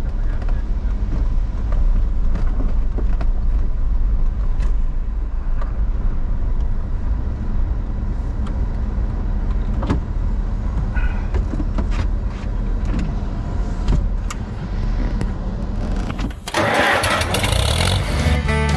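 Car engine and road noise heard from inside the cabin while driving, a steady low rumble with a few light clicks. About sixteen and a half seconds in it cuts off suddenly and a brighter, hissier sound takes over.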